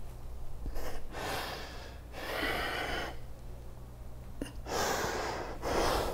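A person's deep, audible breathing: two pairs of long breaths in and out, each about a second long, over a faint steady low hum.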